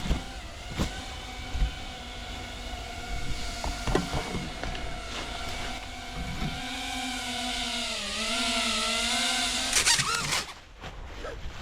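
Small FPV quadcopter's electric motors running with a steady hum and overtones, dipping briefly in pitch about eight seconds in before stopping suddenly near the end. A few sharp knocks are heard along the way.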